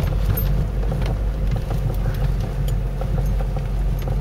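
Ford Cortina Mk3's engine running steadily at low speed as the car rolls slowly over grass, heard from inside the cabin, with a few light clicks.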